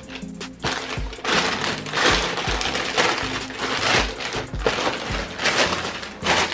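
Plastic poly mailer bag being torn open and crinkled by hand as a boxed item is pulled out, loud rustling from about a second in. Background music with a steady beat plays underneath.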